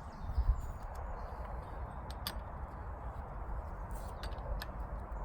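A few light clicks and knocks of hand tools being worked on a stopped chainsaw as the slack chain on its long milling bar is seen to, over a steady low rumble; two dull thumps about half a second in and sharp clicks about two and four seconds in.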